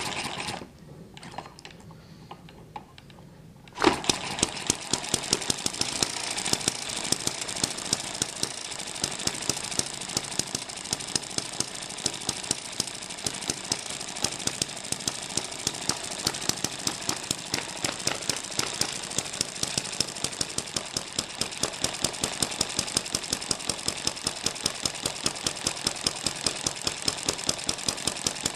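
M94 model hit-and-miss engine starting about four seconds in and then running: a fast, steady mechanical clatter with sharp firing pops at roughly two a second, its governor holding the speed steady.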